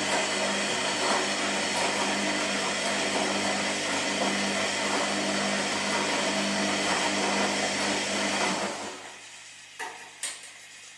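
Washing machine running: a steady motor hum under a loud rushing noise, which dies away about nine seconds in, followed by two sharp clicks half a second apart.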